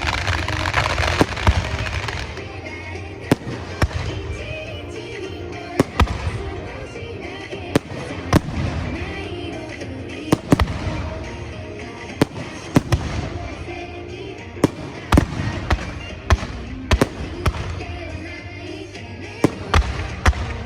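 Fireworks bursting in an irregular series of sharp bangs, with dense crackling in the first couple of seconds, over background music.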